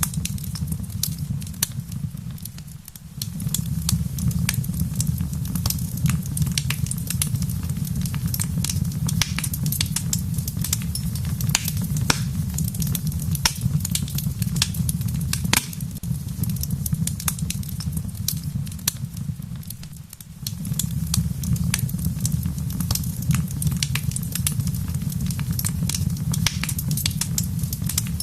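Wood fire in a fireplace crackling and popping with sharp snaps over a steady low rumble. The whole sound dips briefly twice.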